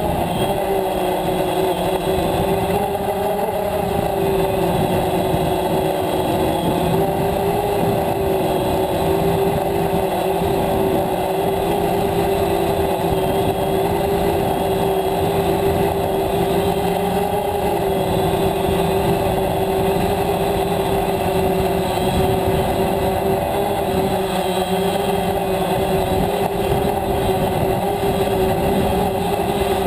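DJI Phantom quadcopter's motors and propellers whining steadily in flight, recorded close up on the drone itself; the pitch wavers slightly as the motors adjust.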